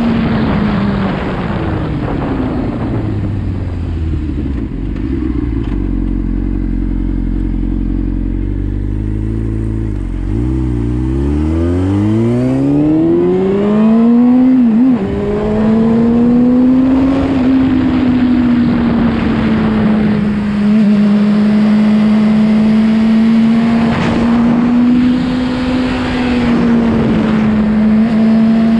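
Sport motorcycle engine heard from the rider's seat over rushing wind. The engine note falls in the first few seconds and stays low for a while. From about ten seconds in it climbs steadily as the bike accelerates, then settles into a steady cruising note.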